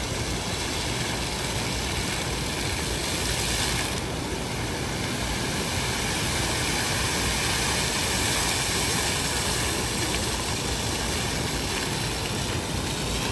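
Steady rushing of a large plaza fountain's water jets splashing down.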